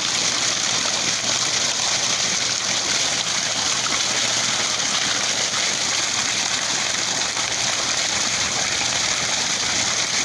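Tubewell water gushing steadily out of a discharge pipe and splashing onto the ground below.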